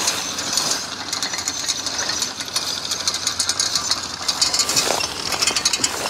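Horse-drawn sickle-bar mower cutting hay, its reciprocating knife giving a rapid, steady mechanical clatter.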